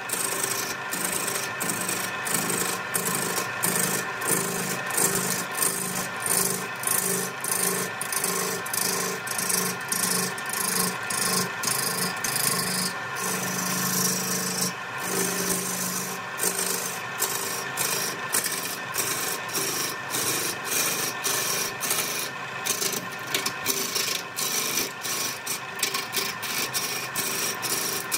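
Wood lathe running, with a turning tool scraping and rasping against the spinning wood. The scraping pulses about twice a second over the steady hum of the lathe.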